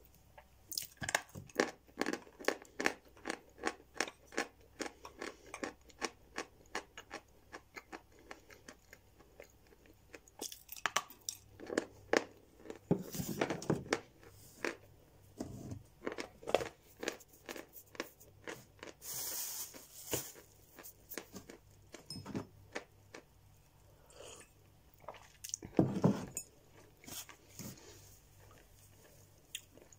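Dry Novy Oskol chalk being chewed, with quick, dull crunching bites at about three a second for the first ten seconds. After that the crunches come more sparsely, with a few louder bites.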